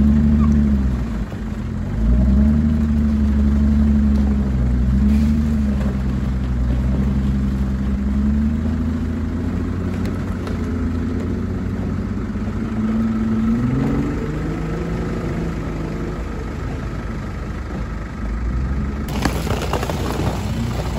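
Jeep Wrangler engine revving in repeated surges, its pitch rising and falling as the vehicle pushes through icy water. Near the end, dense crackling and crunching of ice under a tyre.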